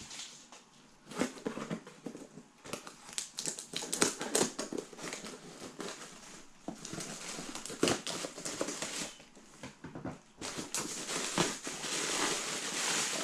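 Plastic packaging and bubble wrap rustling and crinkling as a mail package is pulled open by hand, with scattered clicks and taps; the crinkling is densest near the end.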